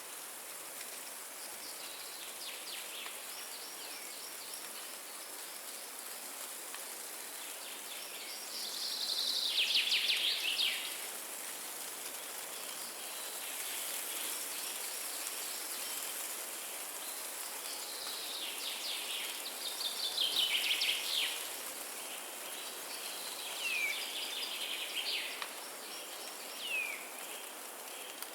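Windy forest ambience: a steady rush of wind in the trees, with small songbirds singing rapid trilled phrases every few seconds, the loudest about nine to eleven seconds in.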